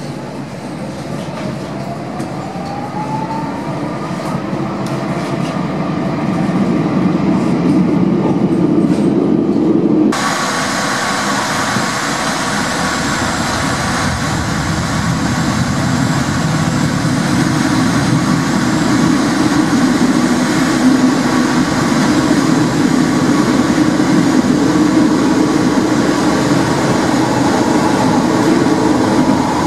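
Porto Metro light-rail tram pulling away from an underground station, its traction motors whining up in pitch over the first few seconds as the running noise builds. After about ten seconds the sound cuts to the steady rumble of a tram running along the track, heard from inside the vehicle.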